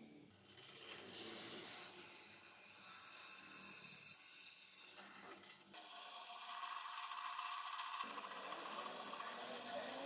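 A drill press drilling a hole through a steel bar held in a machine vise: a steady grinding hiss with a held whine, which changes abruptly a little over halfway.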